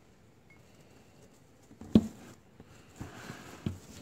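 A live mouse being put into a snake's tub on coconut-husk bedding: faint rustling, one sharp knock about halfway through, then a couple of lighter knocks.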